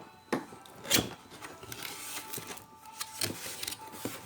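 Packaging being handled during an unboxing: two sharp knocks, the second about a second in and the loudest, then rustling and scraping with a few light taps.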